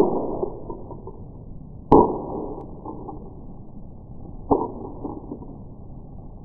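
Plastic snap mouse trap going off and tumbling on paving: low, muffled knocks, one about two seconds in and a weaker one about four and a half seconds in, each fading briefly. The sound is slowed down with the slow-motion playback.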